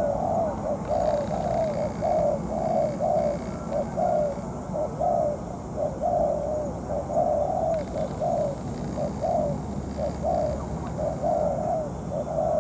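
Spotted dove cooing in a long, fast run of short coos, about two a second, with hardly a pause.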